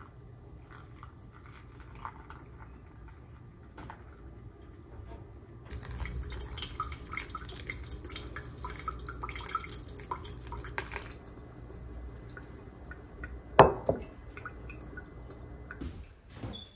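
Hot water poured from a kettle onto coffee grounds in a ceramic pour-over dripper, trickling and dripping into a glass carafe. The pour grows louder about six seconds in and stops near eleven seconds. A single sharp knock, the loudest sound, follows about two seconds later, with a few light knocks near the end.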